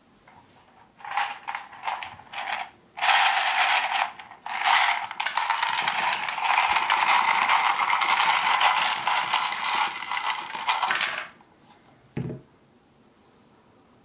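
A pile of Alpaca mechanical keyboard switches, small plastic parts, poured out onto a desk mat. They clatter in a few short spurts, then in a dense stream of tiny clicks for about eight seconds. A single knock follows just after.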